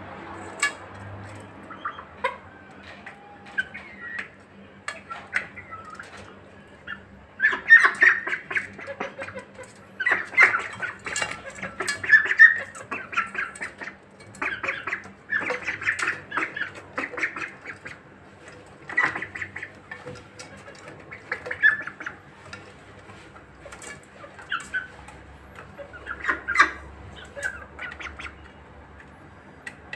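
Young poultry (turkey poults, chickens and ducklings) squawking with short, repeated calls as they feed, busiest around the middle, mixed with sharp clicks of beaks pecking at the feed bowls.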